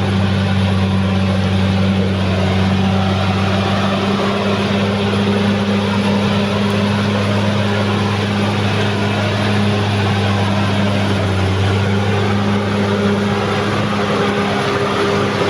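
Caterpillar D6R XL bulldozer's diesel engine running steadily, a constant low drone that holds the same pitch throughout.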